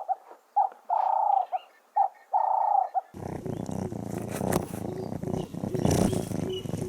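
A bird cooing three times, each call a short note, a longer held note and a short note, repeating about every second and a half. About three seconds in it cuts abruptly to a rough, rumbling recording with rustling and handling clicks, and faint repeated bird notes in the background.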